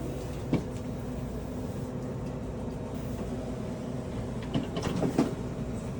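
A steady low mechanical hum with a few short knocks, one about half a second in and three in quick succession near the end.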